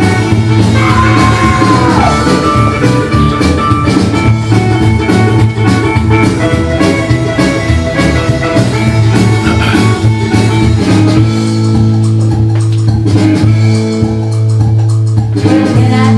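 Loud rockabilly record playing, electric guitar over drums with a steady beat.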